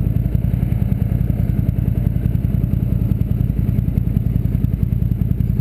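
ATV engine idling steadily close to the microphone, with an even, rapid putter.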